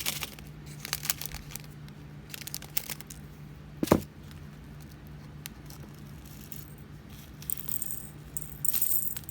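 Small plastic diamond-painting drills rattling and clicking as they are handled and poured into a storage container, with one sharp knock about four seconds in and a dense rattle near the end.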